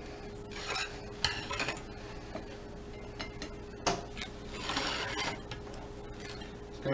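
A serving spoon scooping cooked penne out of a stainless-steel colander onto plates: scattered scrapes and light clinks, with a longer scrape about five seconds in. A faint steady hum lies underneath.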